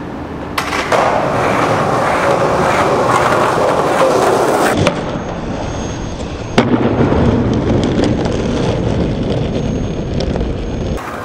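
Skateboard wheels rolling on rough concrete, with one sharp clack of the board landing about six and a half seconds in, then rolling on.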